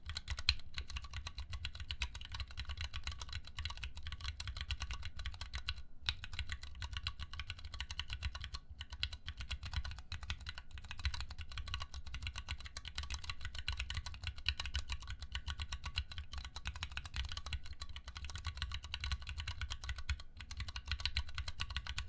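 Fast touch-typing on a Planck 40% ortholinear mechanical keyboard: a rapid, steady stream of keystroke clacks at about 72 words a minute, with a couple of brief pauses.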